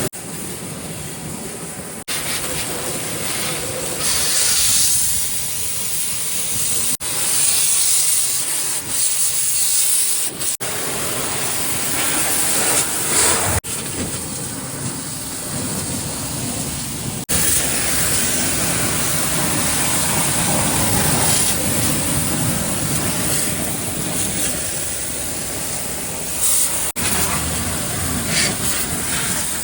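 Water jet spraying onto an excavator's body during washing: a loud, steady hiss that shifts in tone as the spray moves over different surfaces. The hiss changes abruptly several times.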